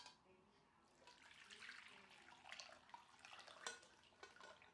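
Faint pouring of chicken stock from a steel pot through a stainless-steel mesh strainer into a glass bowl. There is a sharp metal clink at the start and another just before the end, as the bones tip into the strainer.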